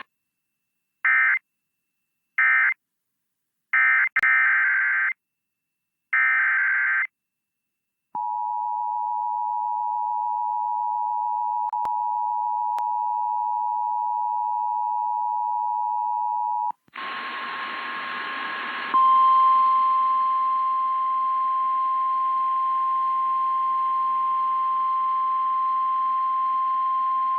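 Emergency Alert System signals. First come four short warbling bursts of SAME digital data. Then the two-tone attention signal is held steady for about eight seconds, and then the NOAA Weather Radio's single-pitch warning alarm tone sounds over radio static, marking the start of a new severe thunderstorm warning.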